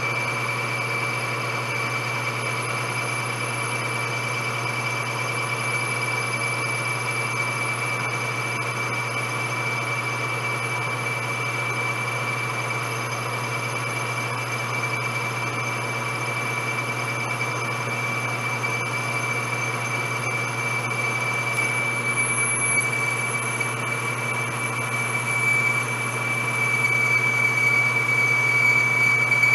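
Metal lathe running with a boring bar taking a dry cut inside a bore: a steady hum under a steady high-pitched whine, growing a little louder near the end.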